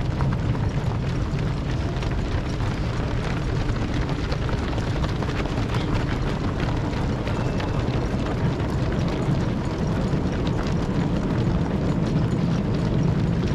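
Steady low rumble of wind buffeting the microphone, over the patter of many runners' shoes on the road.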